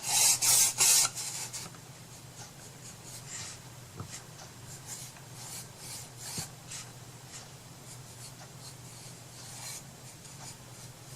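Rubbing strokes on paper and wood by hand: a few quick, loud strokes in the first second and a half, then faint scattered rubbing, over a low steady hum.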